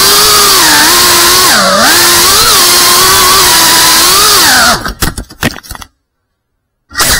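FPV quadcopter's brushless motors whining loudly, the pitch rising and falling with the throttle. Near the end the whine breaks up into a rapid clatter of knocks and stops, the quad hitting something and going down; a short burst of noise follows about a second later.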